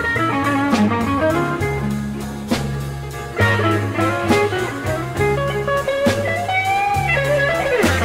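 Blues-style guitar music with bass and drums; the lead guitar bends its notes near the end.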